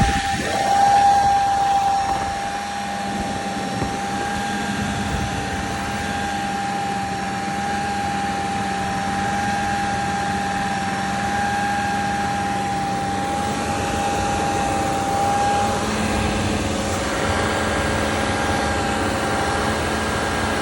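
T1N Sprinter van engine running with a steady high-pitched whine over it, briefly louder about a second in and wavering near the end; the owner suspects the whine may be a turbo problem.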